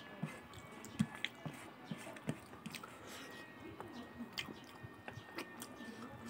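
Close-miked chewing and wet mouth smacks of a person eating rice and potato fry by hand, in irregular short clicks.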